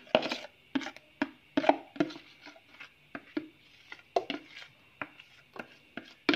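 Metal spoon scraping and tapping tomato paste out of a plastic bowl into a steel pot: irregular knocks and clicks, two or three a second.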